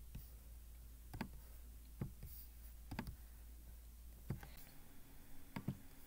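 Faint computer mouse clicks, about five spaced roughly a second apart, over a low hum that stops about two-thirds of the way through.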